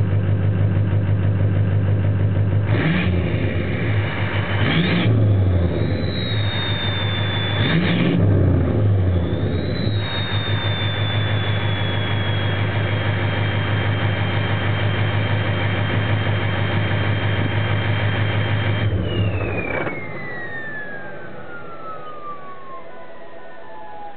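2003 Ford F-350's 6.0L V8 turbo-diesel with an aftermarket VGT-SS turbo, idling and revved twice. Each rev brings a high turbo whistle that rises, then drops slowly in pitch. About three-quarters of the way through the engine cuts off, and the turbo whistle keeps winding down in a long falling tone as it spins down.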